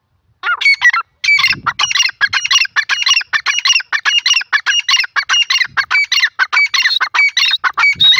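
Grey francolin calling: a loud, fast run of high-pitched notes, repeated over and over without a pause, beginning about half a second in.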